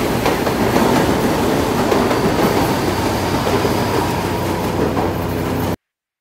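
Electric commuter train passing a station platform at speed, its wheels running loud and steady on the rails. The sound cuts off abruptly near the end.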